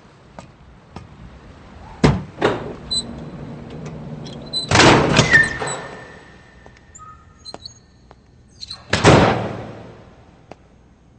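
Heavy metal door sounds: two knocks, then a long loud clanking slide about five seconds in with a metallic ringing tone, and another loud slam about nine seconds in.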